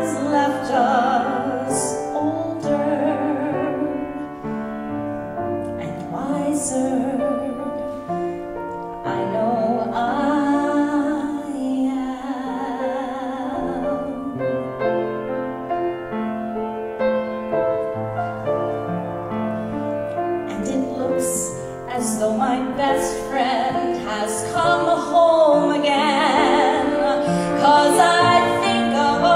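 A woman singing with vibrato, accompanied by grand piano. Her voice grows louder in the last few seconds.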